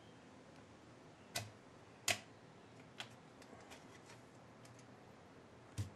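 Sharp metal clicks from a piston and steel ring-compressor sleeve being worked by hand into an outboard cylinder bore: a few separate clicks, the loudest about two seconds in, with lighter ticks between and one more near the end.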